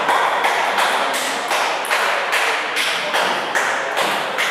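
Table tennis ball tapping, about three sharp taps a second, each ringing briefly in a large hall.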